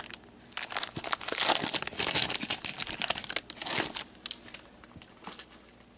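Foil wrapper of a hockey card pack crinkling as it is torn open and pulled off the cards, in rapid crackles that die down after about four seconds.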